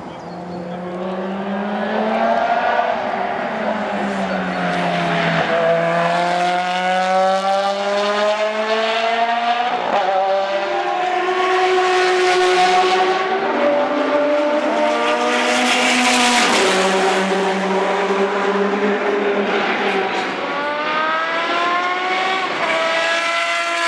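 Engines of GT race cars passing at speed, one car after another. Each engine note climbs in pitch as the car accelerates and drops back at the gearshifts, with a steep climb near the end.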